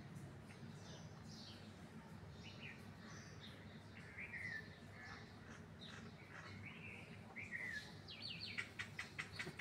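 Small birds chirping in short scattered notes over a steady low background hum, with a quick rattling run of sharp ticks near the end, the loudest sound.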